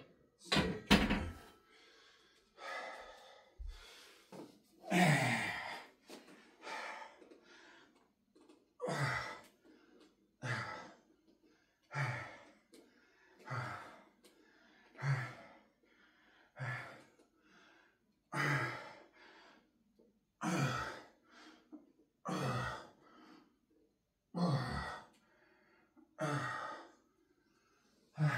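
A man breathing out hard with a short grunt on each push-up, one puff of breath about every one and a half to two seconds. About a second in there are a couple of louder knocks, then a few heavier breaths.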